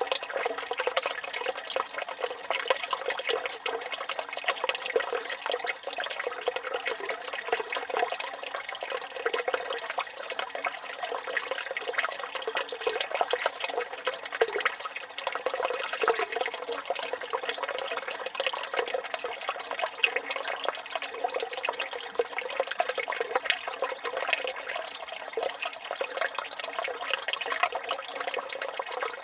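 Water running steadily from a village fountain, a continuous dense splashing with no breaks.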